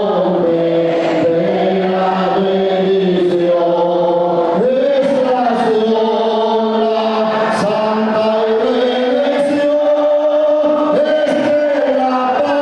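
A group of voices singing a slow song in long held notes, with musical accompaniment.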